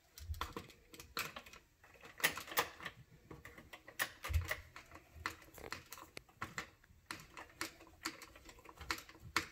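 Light, irregular clicking and tapping of a wrench and plastic wheel parts as the wheel nut is threaded on and tightened on an RC truck's front wheel, with a couple of soft thumps.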